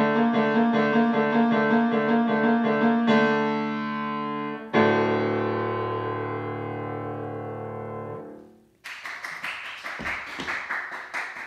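Grand piano playing the closing bars of a piece: fast repeated figures, then a final chord struck about five seconds in and left to ring until it fades. About nine seconds in, a patter of hand clapping begins.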